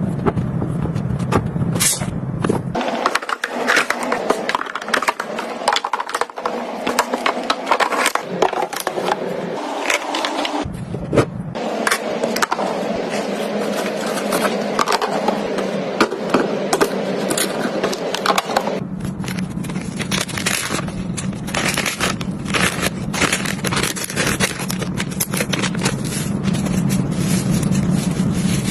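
Close-up clatter of household items being handled and set down: many small clicks, taps and scrapes of containers and packaging. The background changes abruptly about three seconds in, again around ten seconds and again around nineteen seconds.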